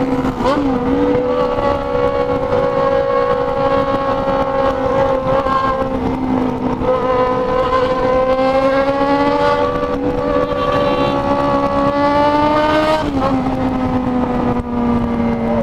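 Yamaha XJ6 motorcycle's inline-four engine running at high revs, its pitch climbing slowly and then dropping suddenly near the end, with wind noise over the microphone.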